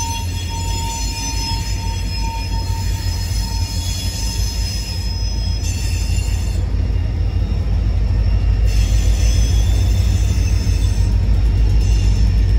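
Wheeling & Lake Erie freight train passing close by: the last diesel locomotives go past, then tank cars and gondolas roll by with a deep rumble. A high, steady wheel squeal from the curve runs over it, and the rolling rumble grows louder toward the end.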